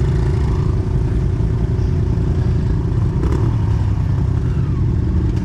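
Pit bike engines running steadily at low revs, the camera rider's own bike loudest. A short knock or clatter comes about three seconds in.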